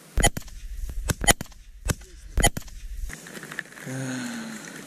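Shotgun firing four shots in quick succession over about two and a half seconds.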